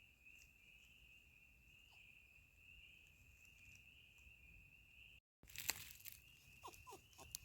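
Faint, steady insect chorus: a continuous high, even buzz. Near the end a few short falling chirps join in.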